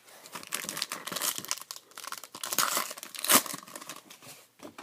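Foil wrapper of a Panini Prizm card pack being torn open and crinkled, with a sharp rip about three and a half seconds in.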